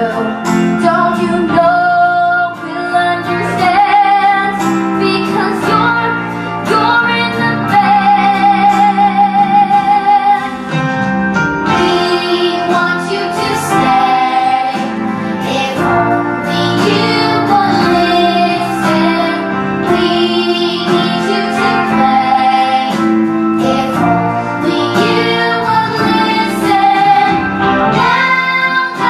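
A song: a high, young-sounding voice sings sustained, wavering notes over guitar accompaniment.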